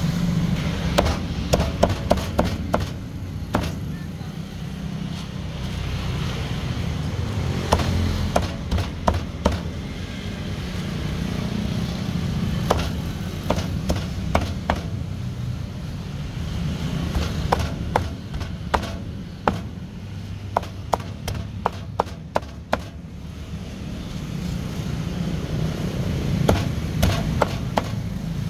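Steel cleaver chopping through roast duck onto a cutting board: sharp knocks in bursts, with a fast run of strokes through the middle, over a steady low background rumble.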